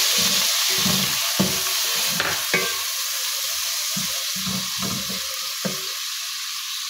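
Chopped tomatoes and onions sizzling in hot ghee in a metal pot, with a wooden spatula scraping the pot bottom in repeated stirring strokes, about two a second. The sizzle slowly gets quieter.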